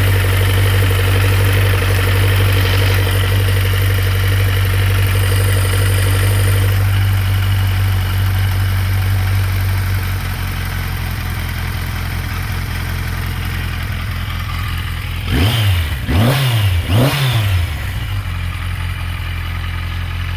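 1981 Yamaha Seca 750's four-cylinder engine idling after a carburettor rebuild. About halfway through, the idle settles lower as the idle adjustment screw is turned down. Near the end the throttle is blipped three times in quick succession, the revs rising and falling each time.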